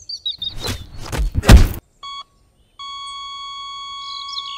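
A burst of thuds and hits, as in a scuffle, the loudest about a second and a half in, with birds chirping faintly. Then a short electronic beep and, about a second later, a steady high electronic tone that keeps going.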